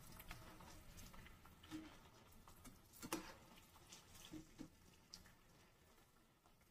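Faint crackle of gujiya deep-frying in hot oil, with a few light clicks as a slotted metal spoon lifts one out of the pan.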